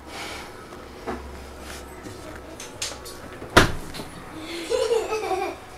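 A single sharp knock about three and a half seconds in, the loudest sound here, with a fainter click earlier.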